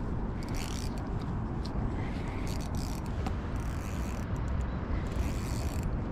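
Wind rumbling on the microphone, with several short hissing scrapes in between.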